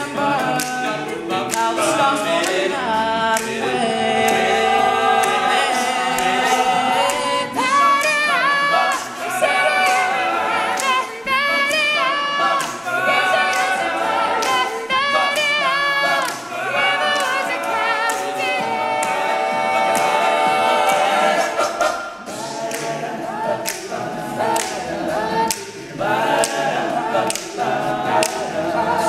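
All-male a cappella group singing in harmony, voices only with no instruments, over a steady beat of sharp clicks.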